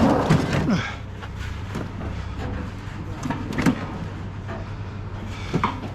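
Scattered knocks and clatters, loudest in the first second, over a low steady hum.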